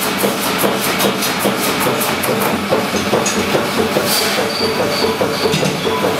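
Massey 500-weight pneumatic power hammer running, with a steady machine hum and a rapid rhythmic clatter of several beats a second. About four seconds in comes a louder clank as the ram comes down to lock a bar on the bottom die.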